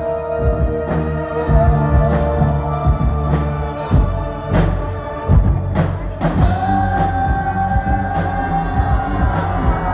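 Live synth-pop played loud through a festival PA and heard from the crowd: a steady drum beat of about two hits a second under sustained synthesizer chords, with a held vocal note from the singer near the end.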